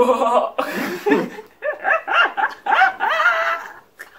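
A person imitating an animal cry with their voice: a string of short, loud cries that rise and fall in pitch.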